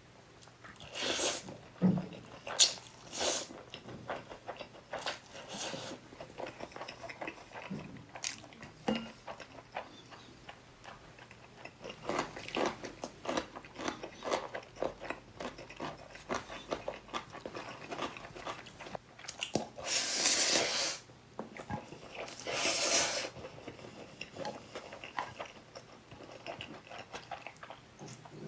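Close-miked eating of black bean (jjajang) noodles with pickled radish and egg: biting and chewing, broken by several louder noisy bursts about a second long.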